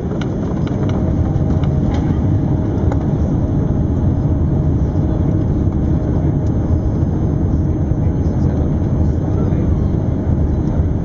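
Airbus A380 jet engines and airframe heard from inside the cabin at takeoff: a loud, steady rumble that builds over the first second and then holds, with a few light cabin rattles in the first two seconds.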